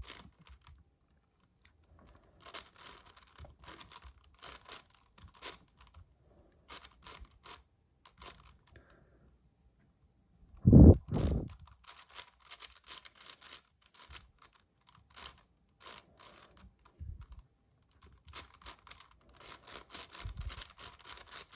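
7x7 magnetic Rubik's cube being turned by hand: irregular runs of quick clicking layer turns with short pauses. A loud low double thump comes about eleven seconds in, with softer thumps later.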